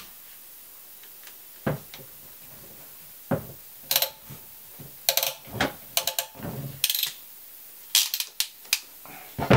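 Hand PEX crimp tool being handled and squeezed to crimp a half-inch plug onto the end of PEX tubing: a string of short, irregular clicks and clacks.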